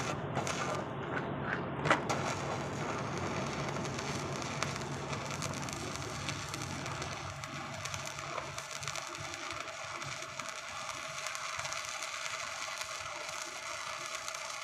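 Electric arc welding on a steel C-channel: the arc crackling and sizzling steadily, with a sharp crack about two seconds in, after which the crackle runs evenly.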